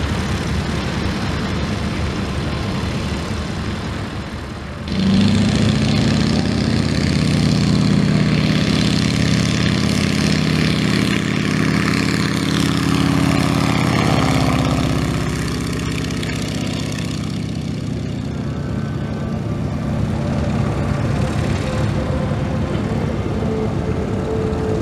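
Boeing Stearman biplane's radial engine turning its propeller at low power, then opened up sharply about five seconds in to full power for the takeoff run. The sound sweeps past with a drop in pitch and then eases off a little as the biplane climbs away.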